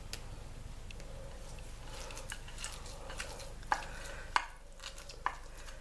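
Hands squeezing and crushing basil leaves with grated shallot in oil: soft wet crackling, with a few sharp clicks in the second half.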